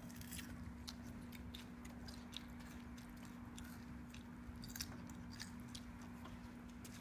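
A child chewing food slowly, with scattered short wet clicks and smacks of the mouth, over a steady low hum.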